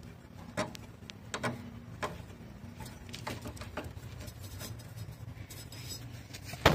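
Motorcycle rear drum brake adjuster wing nut being turned by hand on the brake rod, giving irregular small clicks as it snaps round notch by notch, with a sharper click near the end, over a low steady hum. This is the brake being tightened to take up the gap of worn brake shoes.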